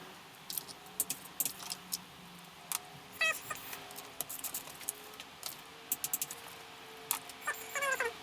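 Ratchet and socket clicking in irregular runs while the transmission case bolts are run down. There are short squeaky notes twice, about three seconds in and near the end.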